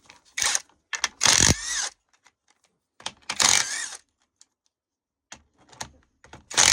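Ratchet wrench with a 10 mm socket undoing the bolts of a gearbox's gear selector mechanism: four bursts of rapid clicking, each lasting up to about a second, with odd small clicks of metal between them.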